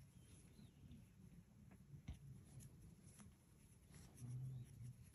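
Near silence, with faint rustling of yarn being looped by hand through knitted fabric and a soft tap about two seconds in. A brief low hum sounds about four seconds in.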